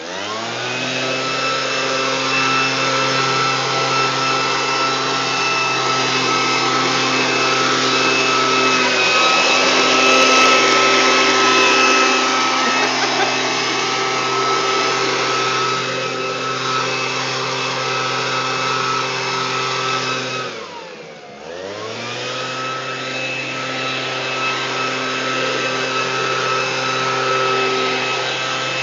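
Leaf blower running steadily, revving up at the start, then dipping in pitch and loudness briefly about 21 seconds in before picking back up.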